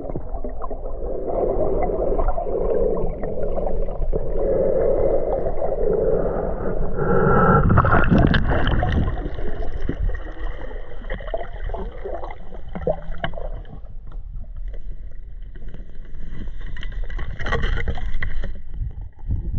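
Underwater sound picked up by an action camera held below the surface: a dull, uneven rush of water and the diver's movements, with a louder surge about eight seconds in.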